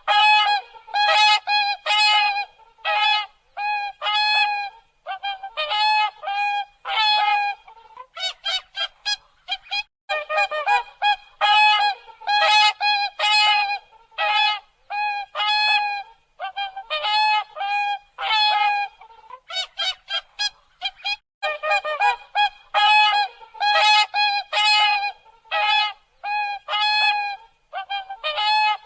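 Swans honking: a long series of short, pitched honks in quick runs with brief pauses between them.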